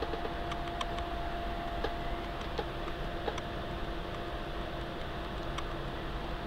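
Steady hiss with a faint steady hum and scattered faint ticks, the background noise of powered-up radio equipment.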